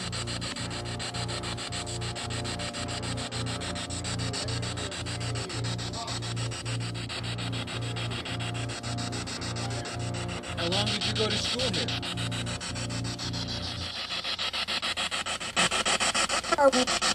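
Spirit box sweeping through radio frequencies: static chopped rapidly at about three steps a second over a low hum, with brief garbled voice-like fragments about ten seconds in and again near the end.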